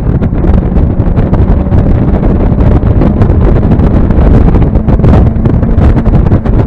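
Mazda MX-5 engine running at track speed under loud wind buffeting on the microphone. The engine note holds steady for the last few seconds.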